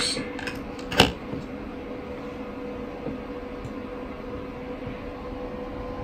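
Steady background hum with a faint steady tone. A single sharp click comes about a second in, with a few lighter ticks just before it.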